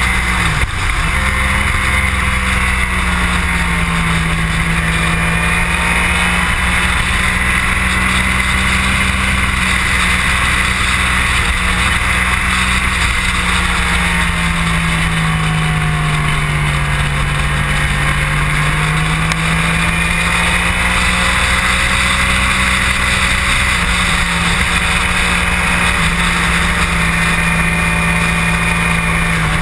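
Motorcycle engine running continuously at speed, heard from a camera mounted on the bike, under heavy wind rush. The engine note sinks slowly in the middle and climbs back again.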